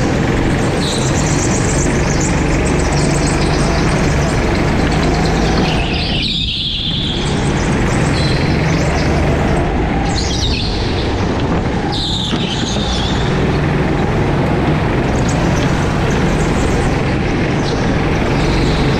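Go-kart engines running steadily at speed, the driver's own kart close to the microphone with other karts around it. A few brief high-pitched squeals through the middle, tyres scrubbing in the corners.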